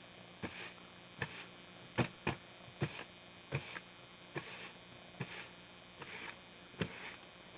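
A steady run of about ten short knocks, roughly one every three-quarters of a second, each followed by a brief scraping swish, like a tool or broom working a hard surface.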